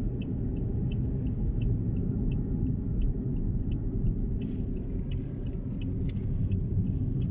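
Car driving, heard from inside the cabin: a steady low road and engine rumble, with a faint, regular ticking of about three a second.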